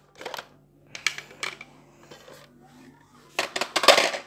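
Hard plastic Nerf blaster parts clacking and rattling as they are handled and set down on a tile floor: a few short clatters, then a busier run of knocks near the end.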